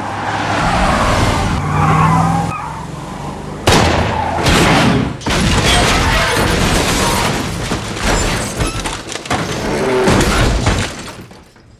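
Film action sound mix: a vehicle running, with several sudden heavy booms, fading out near the end.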